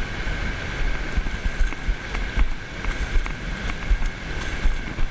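Wind buffeting the microphone in uneven gusts, over the steady hiss of shallow surf washing across sand.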